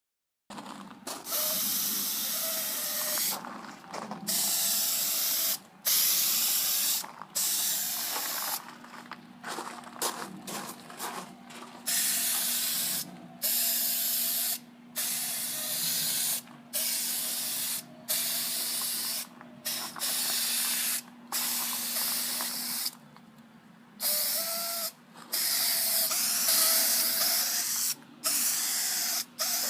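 Aerosol spray can of primer hissing in repeated bursts of about one to two seconds, with short breaks between them.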